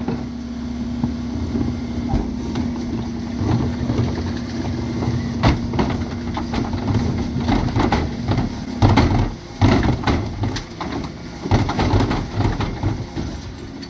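Refuse truck bin lift raising and tipping two wheelie bins into the hopper: a steady hum from the running truck for the first half, then a run of irregular clunks and rattles as the bins are shaken out.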